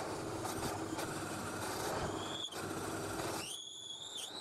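Bench drill press running as the bit bores into a plywood block, a steady mechanical hum. About halfway through a short high rising tone sounds, and a longer high whine follows near the end as the lower hum falls away.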